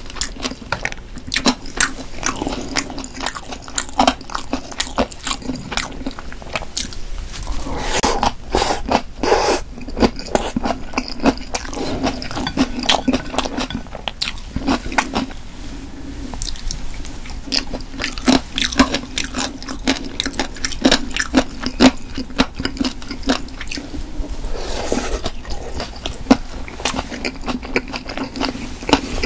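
Close-miked chewing of stir-fried pork cartilage: a dense, continuous stream of sharp crunches as the gristle is bitten through and chewed.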